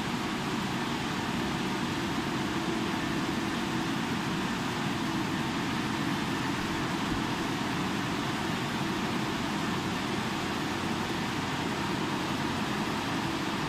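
Risense CF-370 rollover car wash machine running, its rotating brushes working over a car, making a steady whirring hiss.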